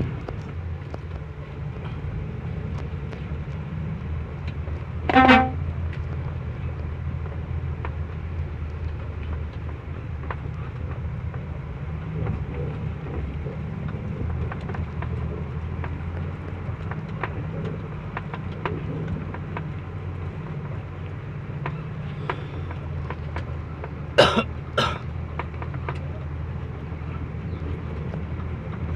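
Heavy truck engine running steadily, with a short horn toot about five seconds in and two quick toots close together near the end.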